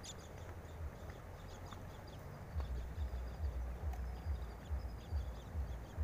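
Footsteps in sandals on a riverbank of loose stones as the walker moves away: faint clicks of stone, then low thuds about twice a second in the second half. Faint high chirps, likely birds, sound now and then.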